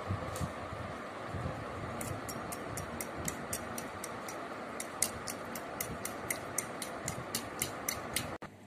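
A fork beating two eggs in a ceramic bowl, clicking against the bowl about four times a second from about two seconds in, over a steady background hiss; the sound cuts off abruptly near the end.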